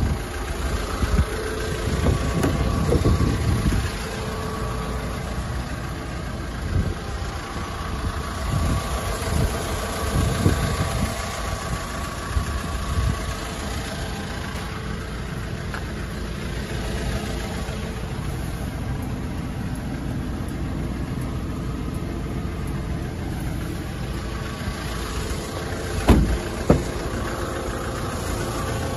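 Hyundai Porter II 1-ton truck's CRDi common-rail diesel engine idling steadily. Two sharp knocks come close together near the end.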